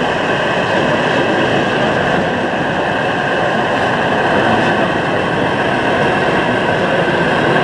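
Gauge 0 model diesel shunting locomotive running slowly along the track, a steady running noise with no pauses.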